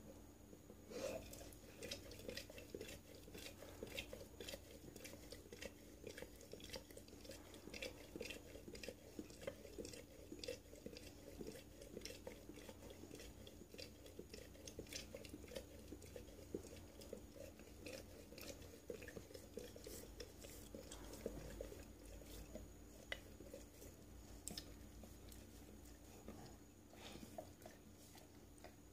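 A dog lapping liquid from a ceramic mug: quick, wet tongue licks and clicks, several a second, with short pauses.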